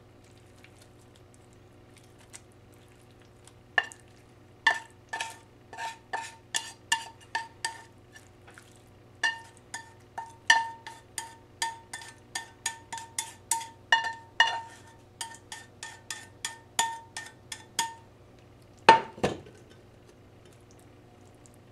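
A utensil knocking and scraping food out of a metal frying pan, each knock making the pan ring briefly, about two knocks a second, then a louder double clank near the end.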